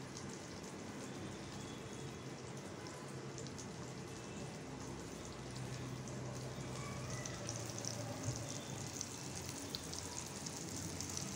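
Semolina-coated Bombay duck fillets shallow-frying in oil in a pan, a steady soft sizzle with faint small crackles, a little louder in the second half.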